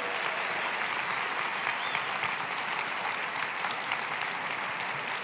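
Large audience clapping in steady applause.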